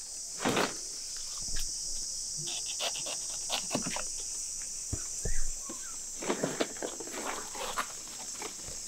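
Insects chirring steadily in a high, even band, with irregular rustles and clicks from large leaves being handled and footsteps on dry leaf litter.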